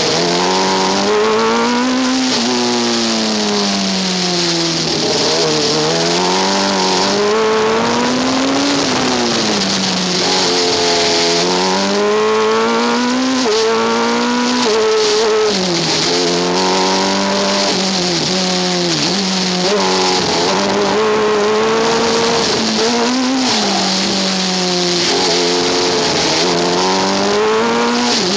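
Engine of a Coventry University Formula Student race car heard onboard: its pitch climbs under acceleration and drops as the throttle lifts, again and again every few seconds through the corners. A steady hiss of wind on the microphone runs underneath.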